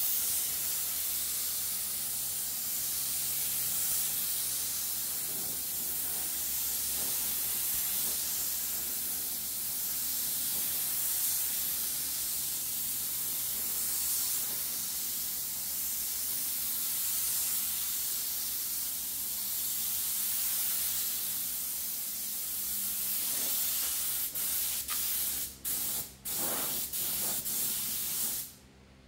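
Gravity-feed compressed-air spray gun hissing steadily as it sprays paint onto steel sheet. Near the end the trigger is let go and pulled again several times, giving short bursts of hiss before the air cuts off.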